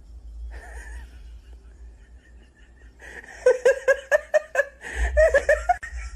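A quick run of short laugh-like bursts, about four or five a second, lasting a couple of seconds from about halfway through, after a softer breathy sound about half a second in.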